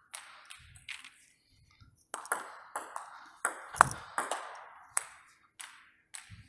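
Table tennis rally: a plastic ball hit back and forth, with sharp pocks as it meets the rubber-faced bats and bounces on the table, about a dozen in all, with a brief pause a little over a second in. One bat is faced with DHS Hurricane 3 Neo rubber.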